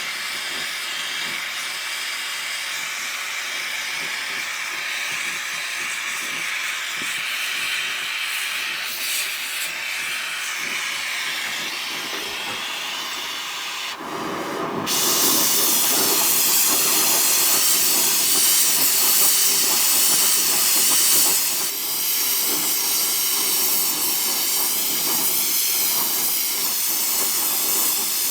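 Gas torch flame burning with a steady hiss as it heats a brass fitting up to silver-soldering temperature. About halfway through the hiss gets louder and fuller, then eases slightly a few seconds later.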